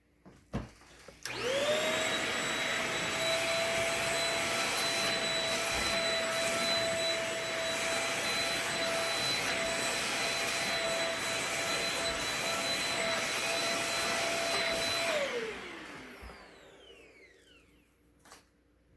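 Shark Rocket TruePet stick vacuum switched on after a click: its motor whines up to speed about a second in and runs steadily at a high pitch with a rushing of air. Near the end it is switched off and winds down with a falling whine.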